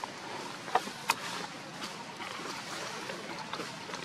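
Steady rushing outdoor background noise, broken by two short sharp clicks about a second in.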